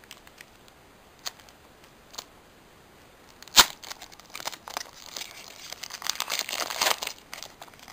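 Foil booster pack wrapper of Pokémon trading cards being handled and torn open by hand: a few faint ticks, one sharp snap about halfway through, then a few seconds of crinkling and tearing.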